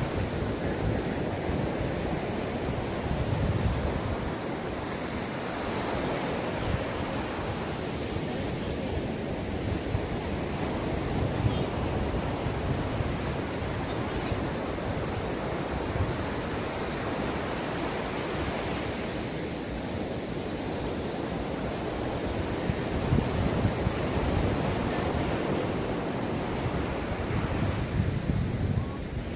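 Ocean surf washing onto a beach in a continuous wash that swells and eases every few seconds. Wind buffets the microphone at times, adding a low rumble.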